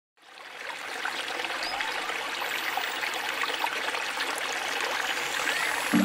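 Water trickling and splashing steadily down the small rock cascades of a garden stream, fading in over the first second.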